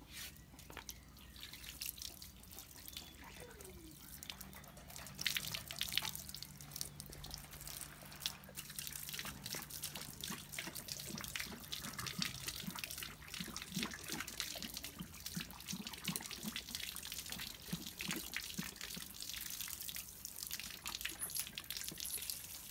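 Running water splashing and dripping over a Cane Corso's coat during a bath, with many small splashes and drips.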